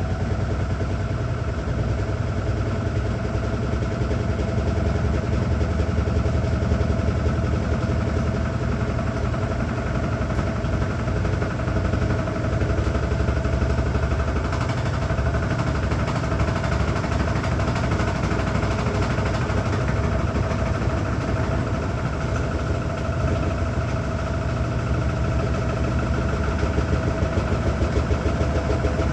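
Washing machine running with a steady, loud mechanical hum and a constant whine over a low rumble: the unusual noise the washer is making.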